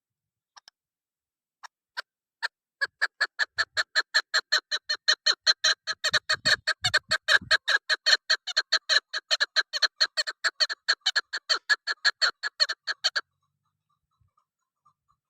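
Female chukar partridge calling: a few scattered single notes, then a long, fast, even run of chuck notes, about five a second, that stops abruptly about two seconds before the end.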